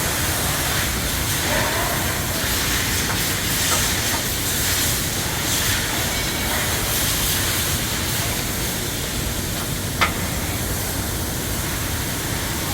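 Steady hiss of compressed air, with one sharp click about ten seconds in.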